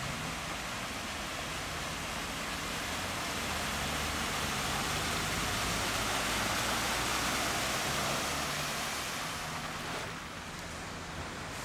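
Cars driving through shallow floodwater on a street: tyres hissing and splashing through the water over a low engine hum. The spray swells to its loudest as a minivan ploughs through about halfway in, then quietens near the end.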